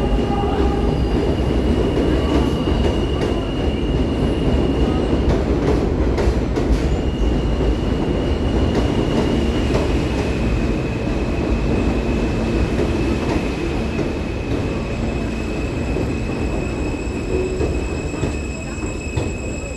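New York City subway M train pulling into a station: a loud, steady rumble of wheels on rail with thin, high-pitched wheel squeal. The sound eases off somewhat near the end as the train slows.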